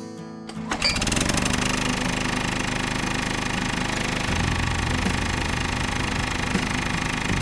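A small motor starts about a second in and runs steadily with a rapid, even chugging beat, turning deeper and a little fuller about four seconds in.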